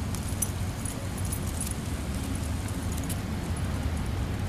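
Light metallic jingling of a dog's leash and collar hardware as the dog trots at heel: scattered faint high ticks over a steady low outdoor rumble.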